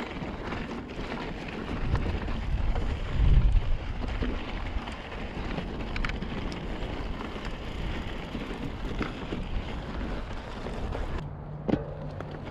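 Mountain bike riding over a rocky, gravelly double track: tyre crunch and small rattles from the bike, mixed with wind on the camera microphone, which rumbles most strongly a couple of seconds in. Near the end the rolling noise eases off and a steady low buzz sets in.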